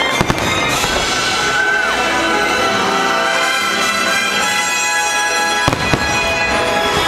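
Fireworks bursting over the show's music, with a sharp bang just after the start and two more close together near the end.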